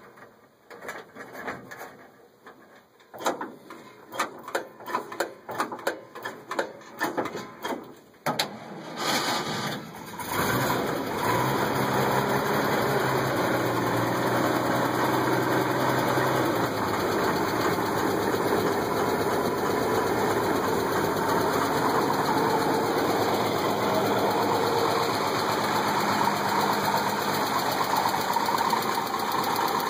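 1955 International R-120 pickup's straight-six engine cranked on the starter from a cold start, in uneven bursts for several seconds, catching about ten seconds in and then running steadily at idle.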